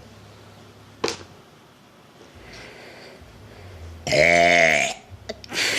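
A frog giving a loud, burp-like croak about four seconds in: one pitched call of just under a second that rises and falls. A sharp click comes about a second in.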